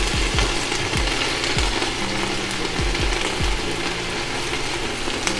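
Collard greens sizzling and popping as they sauté in the hot inner pot of an electric multicooker, with a few low thumps. Soft background music plays underneath.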